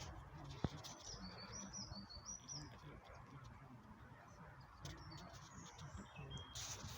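Faint bird song: a run of short high chirps about a second in, and a few more near the end.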